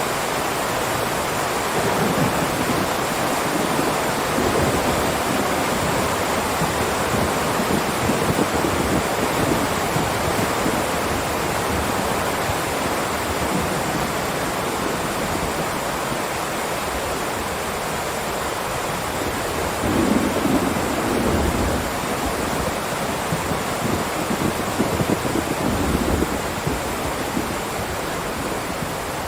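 Heavy rain pouring steadily in a dense, even hiss. Low rumbles swell up about two-thirds of the way through and again a few seconds later.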